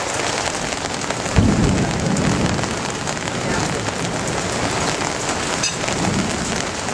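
Steady rain of a thunderstorm, with a thunderclap about a second and a half in that rumbles on for about a second.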